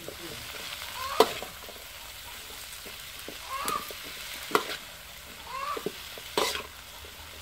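Metal spatula scraping and clacking against an aluminium wok as Chinese kale is stir-fried, over a steady sizzle. Several strokes, the sharpest about a second in and again past the middle.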